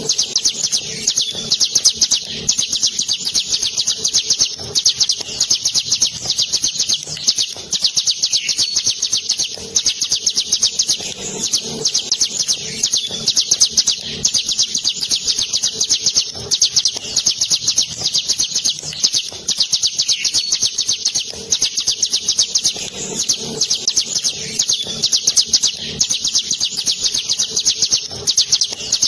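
Ciblek gunung, a prinia kept as a songbird, singing a long rolling song: a continuous run of rapid, high, repeated notes with only a few very brief breaks.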